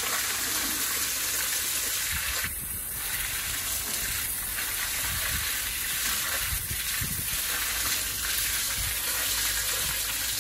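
Garden hose jet spraying water onto a sow's body and the wet concrete floor: a steady hiss and splatter, briefly dropping away about two and a half seconds in.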